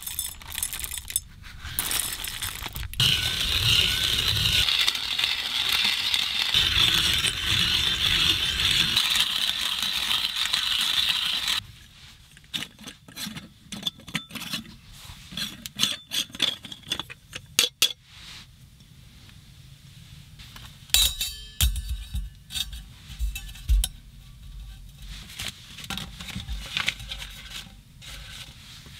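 Whole coffee beans rattling into a stainless steel hand-crank burr grinder, then a loud steady grinding crunch for several seconds that cuts off abruptly, followed by scattered clinks and taps of metal on glass.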